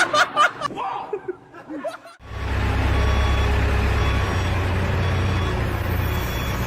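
Laughter for about two seconds. Then, after an abrupt cut, a vehicle engine runs steadily with a deep rumble.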